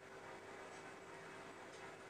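Near silence: faint room tone with a steady low hum and soft ticks about once a second.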